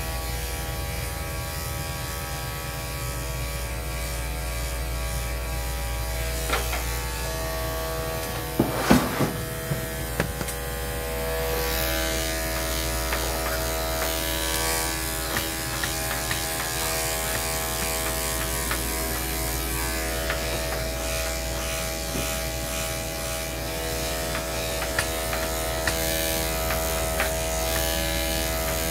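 Corded electric dog-grooming clippers running with a steady buzz as they are pushed through a dog's coat, with a few sharp clicks about nine seconds in. The hum shifts slightly in pitch about twelve seconds in.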